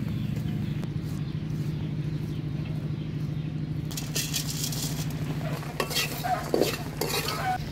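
A steady low hum, then from about four seconds in, the scraping and rattling of seeds being stirred in a dry metal wok.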